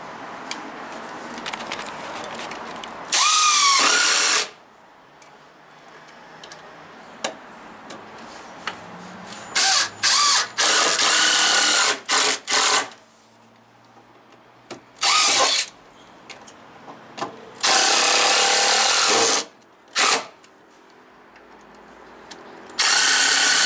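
Cordless impact driver driving screws into timber, run in repeated bursts of one to two seconds with a few short trigger blips between. Some bursts start with a rising whine as the motor spins up.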